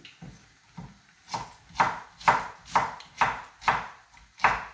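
Kitchen knife chopping artichoke on a wooden cutting board: a steady run of about ten knocks, a little over two a second, faint at first and louder from about a second in.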